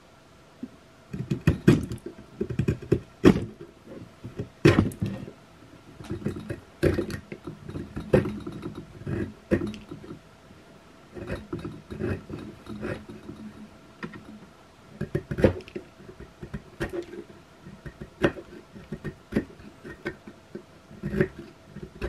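Serrated saw edge of a stainless-steel credit-card multitool scraping across a wooden block in short, uneven strokes, with sharp clicks as the teeth catch the wood, starting about a second in.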